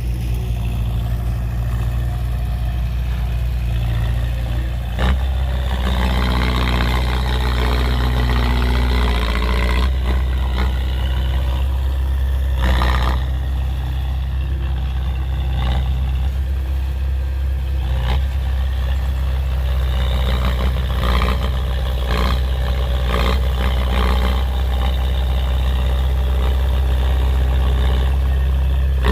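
Heavy diesel earthmoving machinery running steadily with a deep, low drone, broken by several sharp clanks and knocks: one about five seconds in, others around the middle, and a cluster in the last third.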